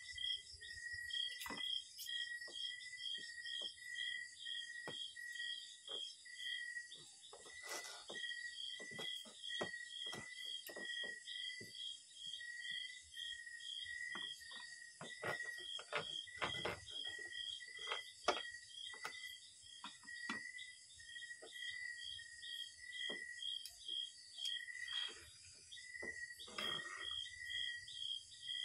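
Insects chirping: two callers at different pitches repeat short pulses in steady, even rhythms, the higher one about three times a second with a few brief pauses, over a continuous high insect hiss. Scattered light clicks and knocks, and a couple of duller thumps, come through now and then.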